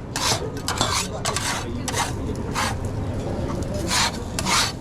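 Irregular short scraping strokes of a utensil working against a pan or tray, over a steady low kitchen hum.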